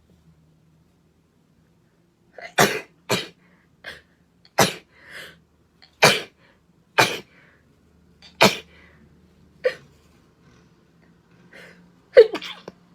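A girl sneezing in a fit of about eight loud, sharp sneezes, roughly one a second, starting a couple of seconds in, with a few weaker ones between; the last near the end is the loudest.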